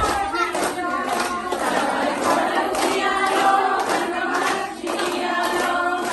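A group of women and girls singing a Boddemma folk song together, clapping their hands in a steady rhythm.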